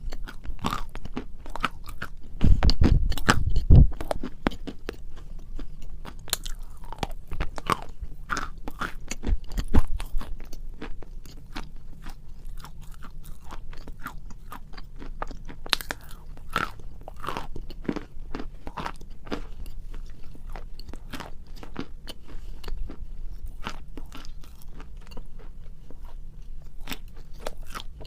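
A person biting into and chewing hard, brittle pieces of edible chalk right at the microphone: dense sharp crunches and crackles, with a few heavier low thuds of bites a few seconds in and again about ten seconds in.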